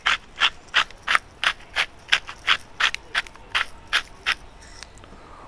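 Hand salt mill grinding salt, turned in quick twists, with about three short grinding strokes a second. It stops near the end.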